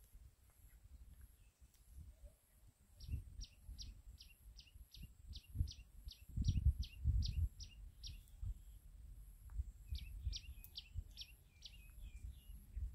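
A bird calling a fast string of short, high, downward-sliding notes, about three a second, then a shorter string near the end. Under it, low rumbles and thumps, loudest in the middle.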